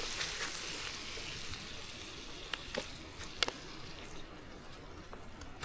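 Food sizzling as it fries in a pan, the hiss slowly dying down, with a couple of light clicks from a utensil against the pan.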